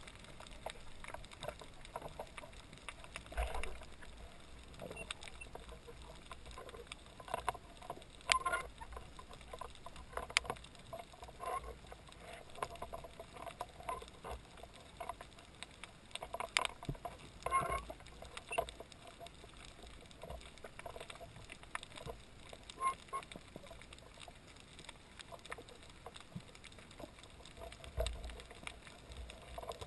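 Underwater ambience through a submerged camera housing: scattered, irregular clicks and crackles over a faint steady hum.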